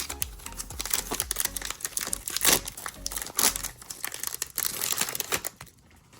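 Plastic foil wrapper of a trading card pack crinkling and tearing as it is ripped open, a dense crackle that stops about a second before the end.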